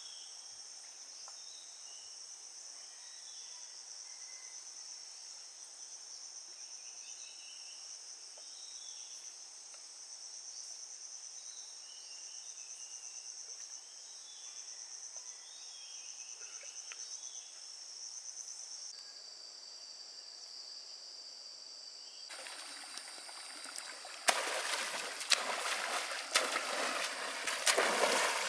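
A steady, high, pulsing insect chorus with a few short chirps. Over the last few seconds come loud splashes of someone running through shallow water, with sharp slaps of feet and spray.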